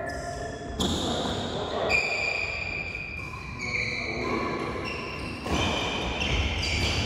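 Doubles badminton play: rackets striking the shuttlecock and players' shoes on the court, in several sudden strokes with sharp steady tones between them.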